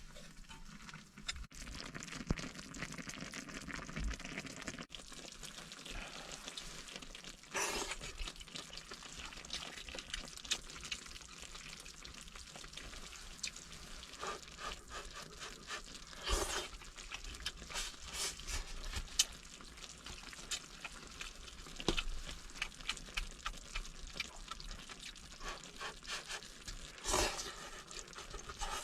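Pig's head meat frying in a pan: a light sizzle with scattered clicks and scrapes of stirring, and three louder clatters, about a quarter of the way in, about halfway and near the end.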